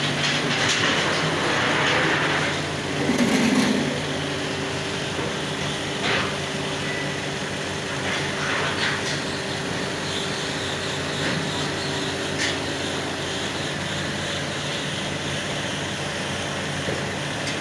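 Steady machine drone with a low hum in an iron-casting foundry, with a brief low rumble about three seconds in and a few sharp clinks while molten iron is poured from a hand ladle into rows of moulds.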